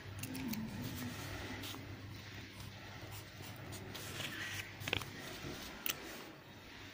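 Pen writing on paper: a few short scratchy strokes and light taps, over a low steady hum.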